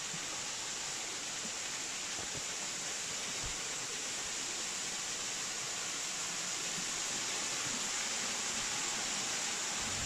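Roughtin Linn waterfall, a thin, low-flow fall of water over a sandstone cliff into a pool, giving a steady hiss of falling and splashing water that grows slightly louder near the end.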